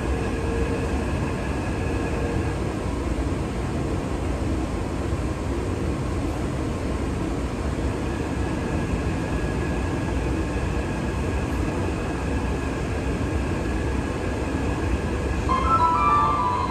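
Inside a moving metro train car: the steady low rumble of wheels on track with a faint steady whine. Near the end an onboard chime melody of stepped notes begins.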